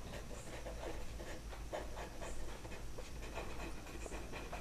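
Faint scratching of a pen writing on paper in short strokes, as words are written out by hand.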